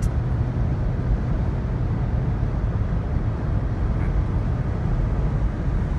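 Steady low rumble of a car driving through a sandstorm, with engine, road and wind noise and no separate knocks or impacts.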